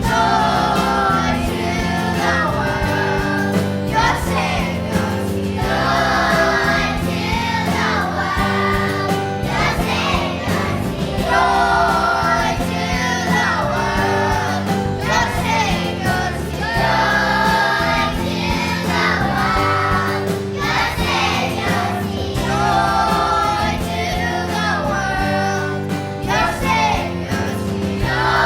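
Choir singing a Christmas song medley with instrumental accompaniment.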